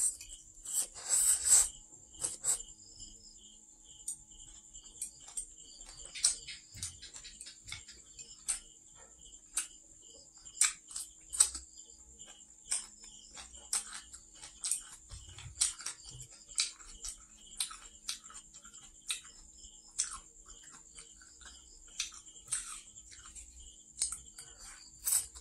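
Close-up eating sounds of a person slurping stir-fried noodles and chewing water spinach: a longer slurp about a second in, then irregular wet mouth smacks and chewing clicks. A steady high chirping of crickets runs behind.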